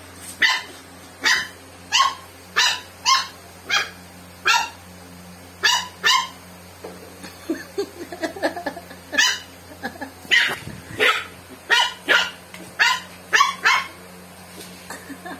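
Six-month-old shih tzu puppy barking at an empty plastic Coca-Cola bottle: about twenty short, high-pitched barks in irregular bursts.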